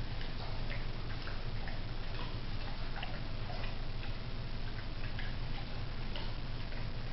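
Steady low hum under faint, light ticks that come roughly once a second.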